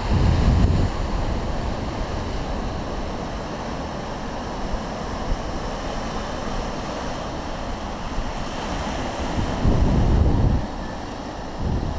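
Ocean surf breaking and washing over shore rocks, with wind buffeting the microphone in gusts, strongest at the start and about ten seconds in.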